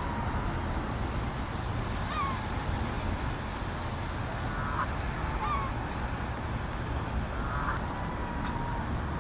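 Birds calling: short, slurred calls come a few seconds apart, four or five in all, over a steady low rumble.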